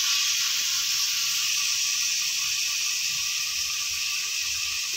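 Grated bottle gourd sizzling steadily in hot ghee in an aluminium kadhai, its water hissing off as it starts to fry; the sizzle eases slightly toward the end.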